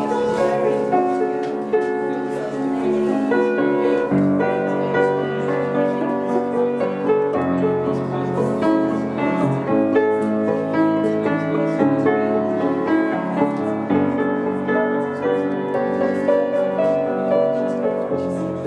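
Instrumental piano passage on a Petrof upright piano: a melody over sustained chords, the bass and harmony shifting every two to four seconds.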